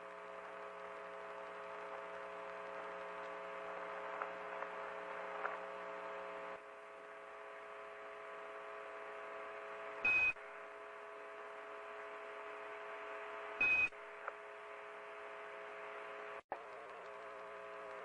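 A steady droning hum made of several held tones, with two short high beeps about three and a half seconds apart and a brief cut-out near the end.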